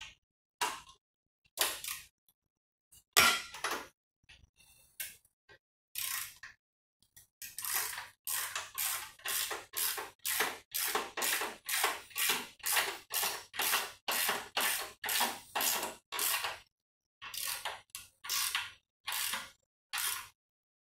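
Ratchet wrench worked back and forth on a motorcycle's rear axle nut as it is tightened, a long run of ratcheting strokes about two a second through the middle, after a few scattered clicks and knocks.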